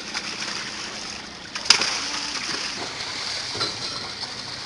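Many large fish thrashing and splashing in shallow water inside a tightly drawn net, a continuous churning splash with one sharp, loud splash about one and a half seconds in.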